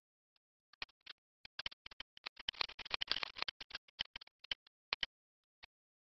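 Stylus scratching on a drawing tablet in quick short strokes, a few at first, then densest about two to three and a half seconds in, thinning out near the end.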